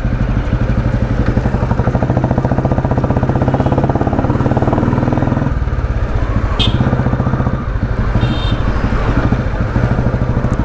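1991 Royal Enfield Bullet's single-cylinder engine running steadily while the bike is ridden, with a fast, even pulse. Its note changes about halfway through, and there is a short click a second later.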